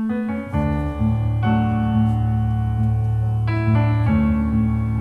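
Keyboard music played back through a pair of Jennings Research Contrara Pedestal MK1 loudspeakers, with sustained chords changing every second or so over a strong bass line.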